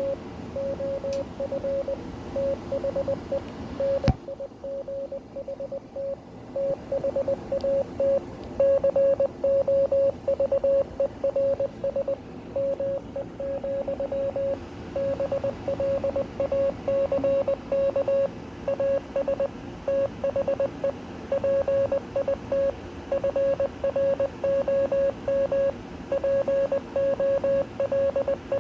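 Morse code sent as a single beep tone keyed on and off in short dots and longer dashes, spelling out the text of the poem Invictus, over a steady background hiss and hum. A sharp click cuts in about four seconds in.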